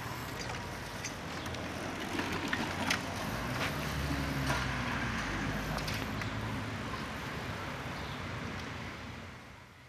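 Children's small bicycles rolling along a concrete sidewalk under outdoor street ambience, with a few sharp clicks and rattles a couple of seconds in. The sound fades out near the end.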